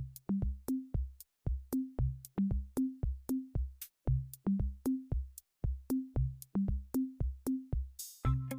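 Background electronic music with a steady drum-machine beat and a bass line, about four beats a second, with a swell near the end.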